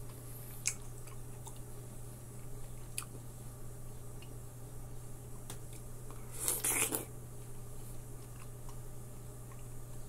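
A person eating fresh orange-fleshed melon: quiet chewing with small wet mouth clicks, then one bite into a juicy melon slice about six and a half seconds in, the loudest sound.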